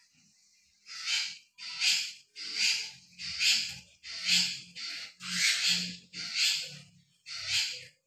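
A caged songbird calling over and over in harsh, rasping bursts, about eight in a steady rhythm a little under a second apart.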